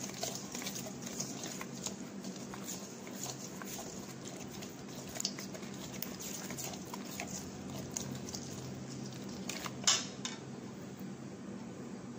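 Metal spoon stirring a thick yogurt-and-spice marinade in a stainless steel bowl: irregular soft scrapes and light clinks of spoon on steel, with one louder clink near the end, over a faint steady hum.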